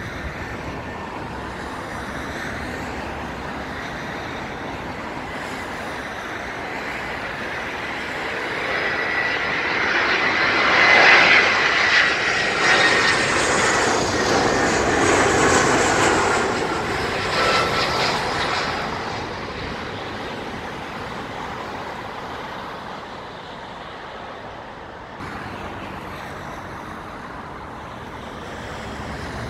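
Swiss twin-jet airliner passing low overhead on final approach with its landing gear down. Its engine noise swells to a peak about halfway through, with a high whine that falls slightly in pitch as it goes by, then fades away.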